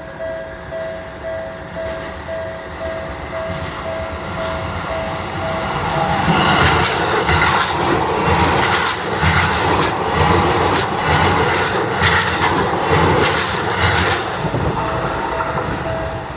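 Japanese level-crossing warning bell sounding in a steady pulse, about two strokes a second, then a Tokyo Metro 17000 series electric train passing over the crossing from about six to fourteen seconds in, its wheels clacking regularly over the rail joints and drowning out the bell, which is heard again near the end as the train clears.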